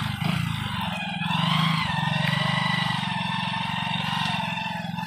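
Motorcycle engine running while riding on a rough dirt road, the revs rising briefly about a second and a half in and then settling back to a steady note.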